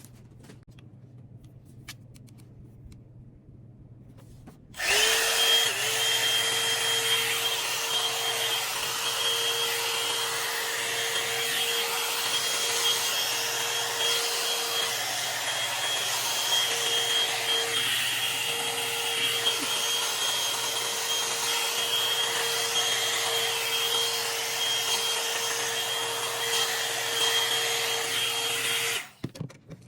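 Complex Culture hair dryer switched on about five seconds in, running steadily with a motor whine and rushing air, then switched off just before the end.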